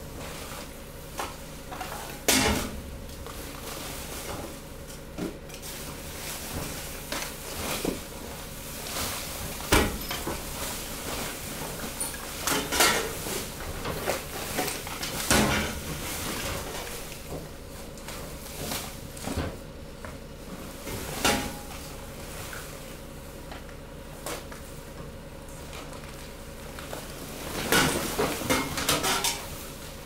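Hydraulic waste compactor running with a steady hum while mixed household waste in the hopper is crushed: scattered crackles, snaps and clatters of plastic, bottles and debris giving way, with a busier run of crunches near the end.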